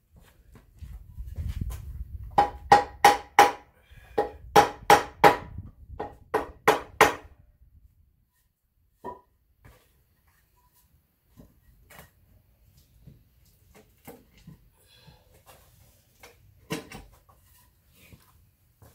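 A wooden board struck hard against the cast-iron block of an AMC 4.2 L inline-six on an engine stand, about ten sharp knocks in three quick bursts, each with a brief metallic ring. These are followed by scattered lighter knocks and one louder knock near the end.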